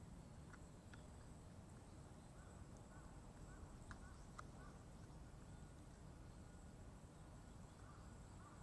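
Near silence: a low room hum with a few faint small clicks.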